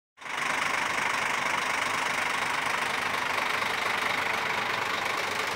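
Scania R440 truck's inline-six diesel engine idling steadily.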